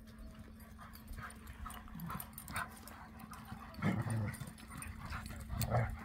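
Two dogs playing: a few short, low vocal sounds (grunts and whimpers) a couple of seconds apart, over faint scuffing of paws on dry ground.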